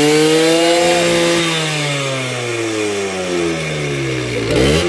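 Small motorcycle engine revving: it starts high, then the revs sink slowly for about four seconds as the throttle eases off, with a quick rev back up near the end.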